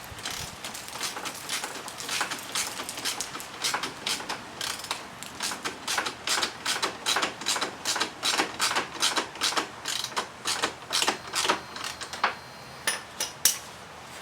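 Socket ratchet wrench clicking steadily, about three to four clicks a second, as the slip-on exhaust's mounting bolts are run down; the clicking stops near the end with a few last clicks.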